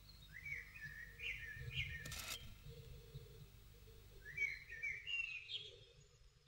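Small songbird calling in two runs of short, quick chirps that slide in pitch, with a single sharp knock about two seconds in, over a low background rumble.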